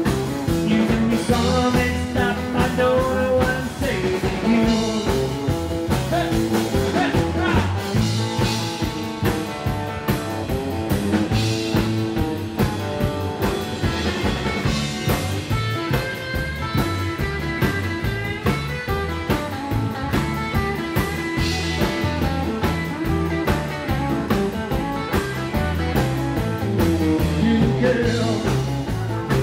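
Live rockabilly band playing with electric guitar, acoustic guitar, upright double bass and drum kit, driven by a steady walking bass line and beat.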